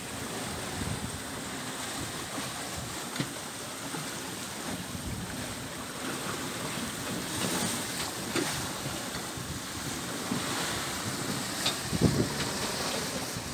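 Wind buffeting the microphone over the rush of waves along the hull of a Sadler 26 sailing yacht heeled under sail in a choppy sea, with a few short knocks now and then.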